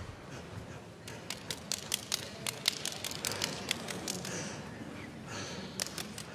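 A run of sharp, irregular clicks, several a second, over faint hall noise, pausing for about a second and starting again near the end.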